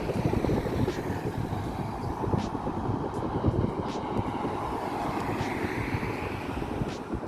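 A car driving past with a low engine and exhaust rumble, its note drifting up and back down, with a few faint clicks.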